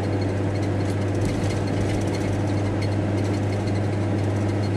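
Steady drone of a VW T4 Transporter van heard from inside the cab while driving: a constant low engine hum with road and cabin noise, unchanging in level.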